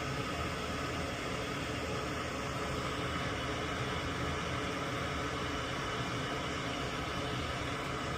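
Steady fan-like whooshing noise with a low hum underneath, even and unbroken throughout.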